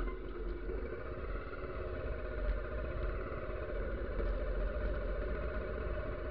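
Bajaj Pulsar motorcycle engine running steadily, with a deep low rumble underneath.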